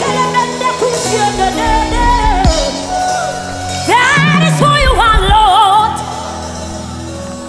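Live gospel worship music: held keyboard and bass chords under a singer's wavering, ornamented vocal line. It is loudest from about four seconds in, then drops back to quieter held chords near the end.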